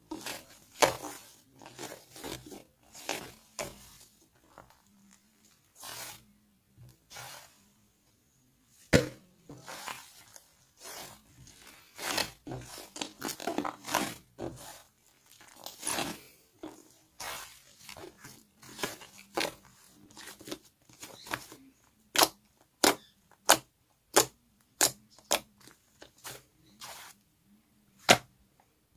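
Slime being pressed, stretched and poked by hand, giving irregular sharp pops, clicks and crackles. From about 22 seconds in, a run of louder pops comes roughly twice a second.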